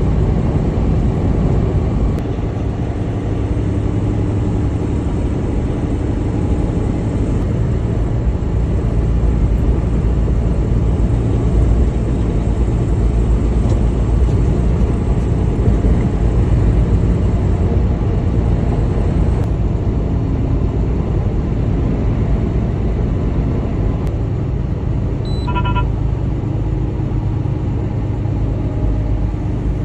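Steady drone of a semi truck's diesel engine and road rumble heard inside the cab at highway speed. There is one short high-pitched chime near the end.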